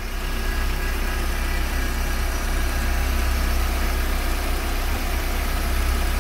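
Volkswagen AP 2.0 8v four-cylinder engine idling steadily while still cold, without the strange noise from the timing-belt tensioner or pulley.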